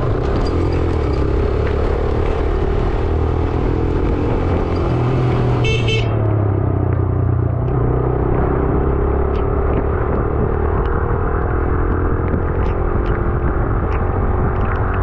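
Motorcycle engine running under way, its note slowly rising and falling, over steady wind and road noise. A vehicle horn sounds briefly about six seconds in.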